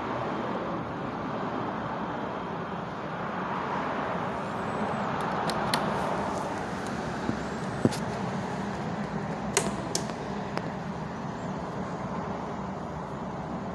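Steady background noise with a handful of sharp clicks and clinks near the middle, the loudest two about eight and nine and a half seconds in.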